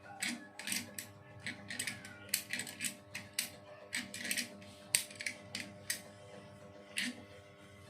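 Irregular clicks and clacks of a machine's metal mechanism being worked, about two or three a second, stopping about seven seconds in, over a steady hum.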